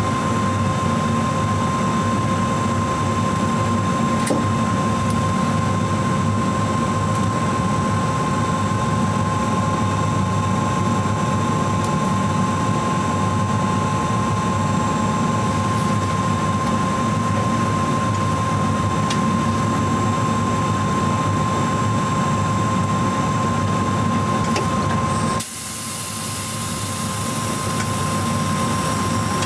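In-cab running noise of a BB 17000 electric locomotive moving slowly through a depot yard: a steady low hum with a constant high tone over it. About 25 seconds in, the low hum cuts off suddenly and a brighter hiss takes over.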